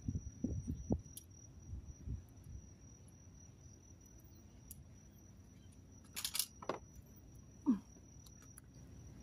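Faint knocks and rustles of a person moving close to the camera, with several bumps in the first second and a brief brushing sound about six seconds in, over a thin steady high-pitched tone. A short falling sound comes near the end.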